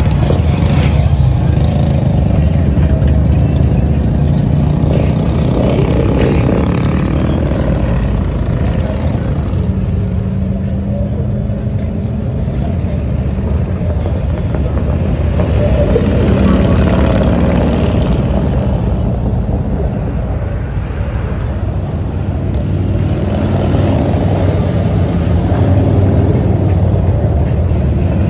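Heavy touring motorcycles riding past one after another, their engines running loud and steady, swelling and fading as each group goes by.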